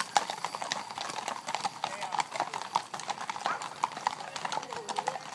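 Hooves of several horses walking on a paved road: a steady, uneven run of clip-clop strikes.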